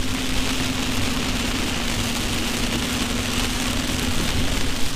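Heavy rain hitting a moving car's roof and windshield, an even hiss, heard inside the cabin over the steady drone of the engine and tyres on the wet road; the drone drops away about four seconds in.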